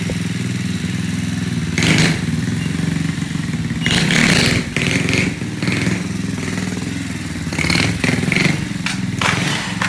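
Small moped engine running under a steady drone, blipped hard several times in short loud bursts as the bike is ridden and lifted into a wheelie, with some clattering knocks in between.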